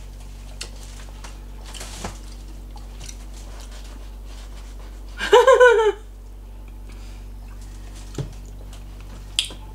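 Quiet mealtime handling at a table, a few soft clicks, over a steady low electrical hum. About five seconds in, a person gives one short, loud wordless vocal burst of several quick pulses.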